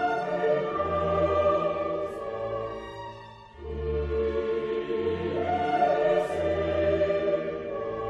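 Background music: orchestral music with choral singing in long held notes. One phrase fades out about three and a half seconds in and the next begins.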